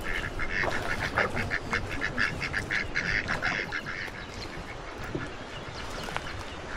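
Ducks quacking in a run of rapid, repeated calls that grow fainter after about four seconds.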